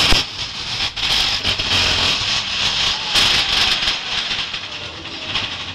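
Mine train running on its rails: a loud, steady hiss with a sharp metallic knock right at the start.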